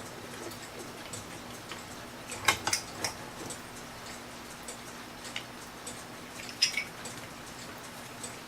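Small metal clock-movement parts clicking and clinking as they are handled, with a few louder clinks about two and a half, three and six and a half seconds in.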